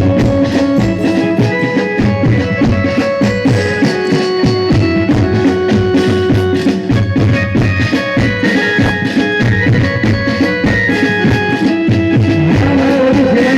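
Instrumental interlude of a devotional folk song: a steady drum beat under held melodic lines from a sustained instrument, with no singing.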